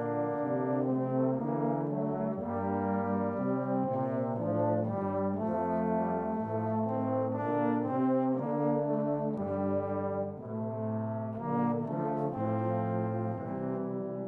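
A low brass ensemble of trombones, euphonium and tuba plays a slow ballad in close harmony. Held chords move note by note over a tuba bass line.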